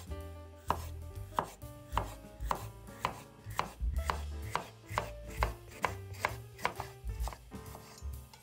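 Chef's knife slicing a red bell pepper into strips on a bamboo cutting board: an even run of knife strikes against the wood, about two a second.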